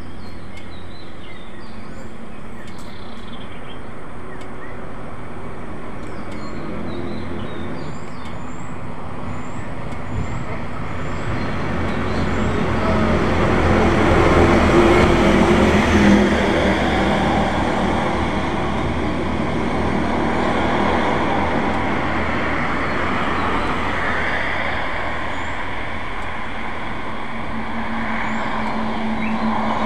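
Road traffic: vehicles pass on the road, the sound swelling to its loudest about halfway through and rising again near the end, over a steady low engine hum. Faint bird chirps in the first several seconds.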